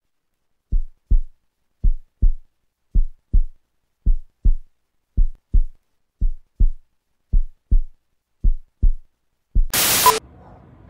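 Heartbeat sound effect: eight low double thumps, lub-dub, about one a second. It ends in a short, loud burst of static hiss with a brief beep in it, a glitch-transition effect.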